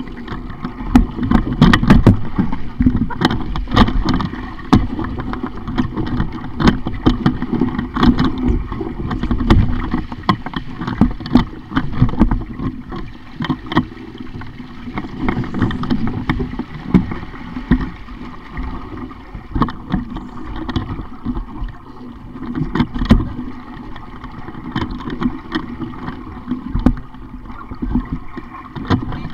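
Water splashing and gurgling against a sailing dinghy's hull as it moves, with an uneven rushing noise and frequent short knocks and clicks throughout.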